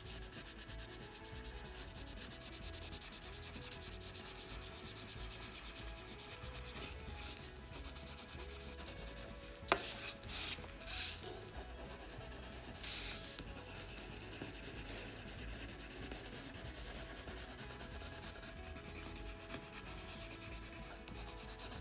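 Colored pencil scratching across drawing paper in rapid short strokes. There is a sharp click about halfway through, with a few brief rustles just after.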